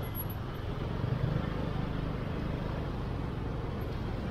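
Steady street traffic noise: a low rumble of vehicle engines and road noise, swelling slightly about a second in.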